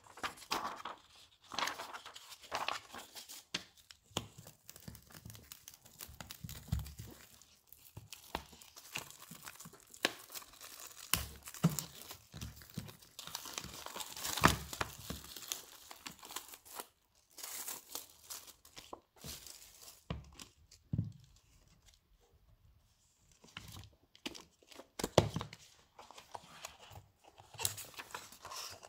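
Paper and plastic wrapping being handled: crinkling and rustling as printed posters, sleeves and wrapped prints are picked up and shifted, with pages of a large glossy photo book flipped near the end. It comes in irregular bursts with sharp crackles, quieter for a few seconds past the middle.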